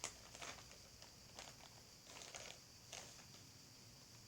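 Near silence, with a few faint, brief soft taps and rustles of small handling noise.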